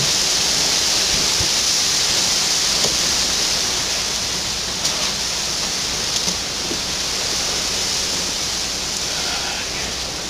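Steady, fairly loud hiss of background noise, brightest in the upper range, with no other distinct sound; it eases slightly toward the end.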